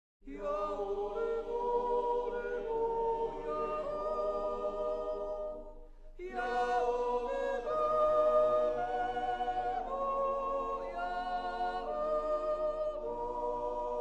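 Background music: voices singing slow, held chords in two long phrases, with a short break about six seconds in.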